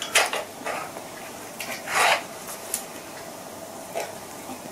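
Hands handling a Baader Hyperion 8-24mm zoom eyepiece: scattered short rubs and light clicks, with the strongest ones just after the start and about two seconds in.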